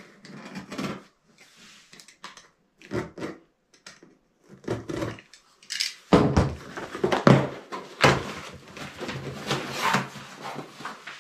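A cardboard shipping box being opened. A utility knife cuts the packing tape in short, scattered scrapes. From about six seconds in, the flaps are pulled open and crinkled packing paper rustles, louder and more continuous.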